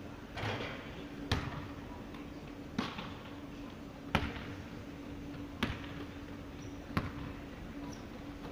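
Basketball bouncing on a hardwood gym floor: about six separate sharp bounces, roughly one every second and a half, each with a short echo.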